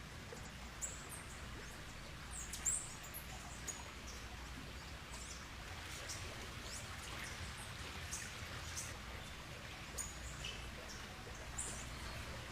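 Birds giving scattered short, high chirps, faint over a low steady hum.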